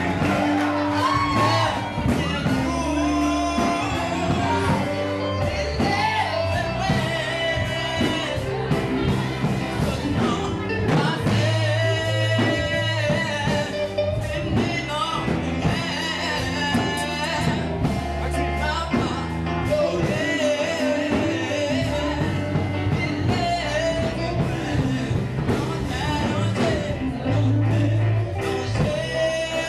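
A man singing solo into a microphone over amplified musical accompaniment with held bass notes, through a PA.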